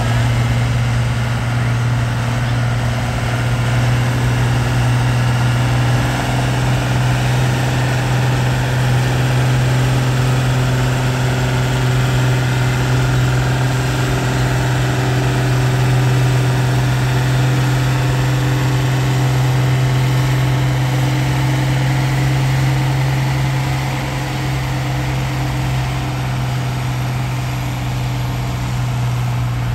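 Diesel farm tractor engine running loud and steady at one constant speed, its level dipping slightly about three-quarters of the way through.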